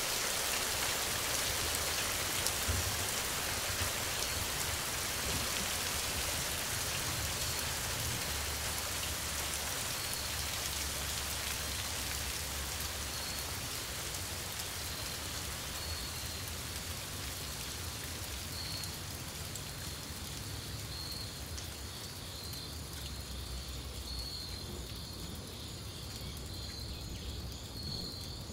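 Steady rain falling, with many individual drops ticking, easing off gradually toward the end. About a third of the way in, insects begin a pulsing, high chirp that grows more prominent as the rain thins.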